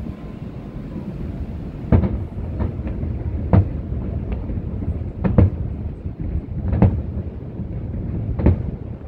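Aerial firework shells bursting: a string of sharp bangs at irregular intervals, beginning about two seconds in, over a low continuous rumble.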